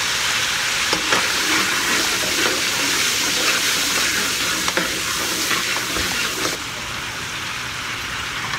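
Oyster sauce, soy sauce and sugar sizzling and bubbling in a hot wok as it thickens, with a spoon stirring and scraping against the pan. The sizzle eases a little near the end.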